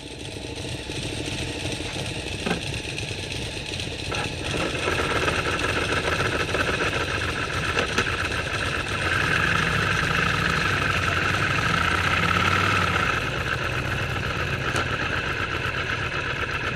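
Ducati motorcycle engines running steadily, swelling over the first few seconds and strongest from about nine to thirteen seconds in.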